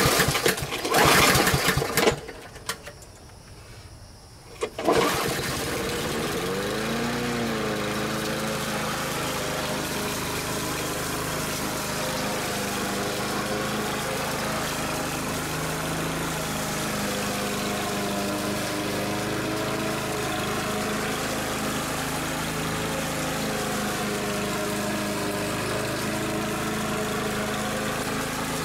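Walk-behind push mower's small engine pull-started with its recoil starter. It catches about five seconds in, rises in pitch up to speed, then runs steadily as the mower cuts grass.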